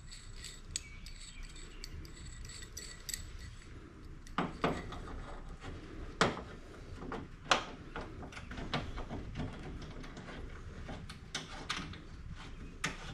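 Scattered metallic clinks and knocks as a C-clamp is set on the end of a steel door armor panel and screwed down to clamp it tight against the door, with a few louder knocks about four, six and seven seconds in.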